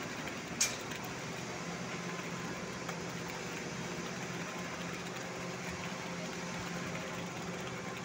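Engine of the concrete-pouring machinery running steadily at an even pitch, with one sharp click about half a second in.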